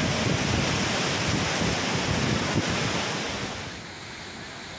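Rushing floodwater from heavy rain, a dense, steady rush with gusts of wind buffeting the microphone; it drops to a quieter rush about three and a half seconds in.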